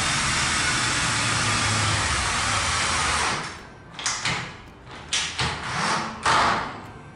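Cordless drill-driver driving press-washer self-tapping screws into the steel drywall stud profile: one long steady run for about three seconds, then several short trigger bursts.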